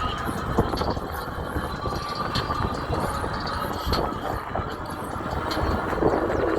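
Steady riding noise from an e-bike on the move: wind rumbling on the microphone and tyre noise, with a faint steady whine.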